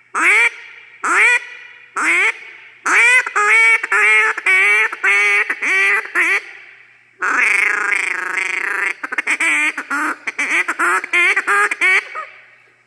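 Duck call blown by mouth. It gives three single quacks about a second apart, then a run of about eight quacks. A long rapid rolling chatter follows, then a fast series of quacks that tails off near the end.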